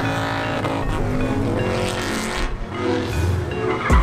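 Car engine revving with tires spinning in a smoky burnout, over background music. A tire screech starts near the end.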